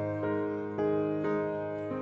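Background piano music, a new note struck about every half second and left to ring.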